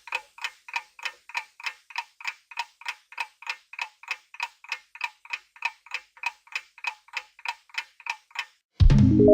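Clock-style countdown timer sound effect ticking evenly, about three ticks a second. Near the end it stops and a loud low hit sounds, with a ringing chord held after it.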